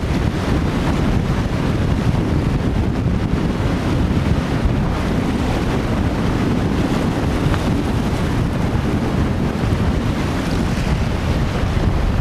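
Wind buffeting the microphone in a steady low rumble, with the wash of waves beneath it.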